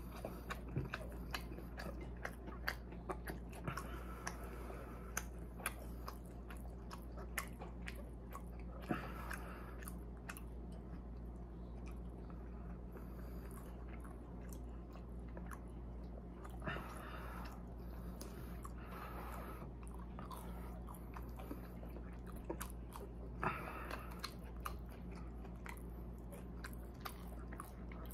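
Close-up mouth sounds of someone eating french fries: chewing, lip smacks and wet clicks, busiest in the first ten seconds and scattered after that. A steady low hum runs underneath.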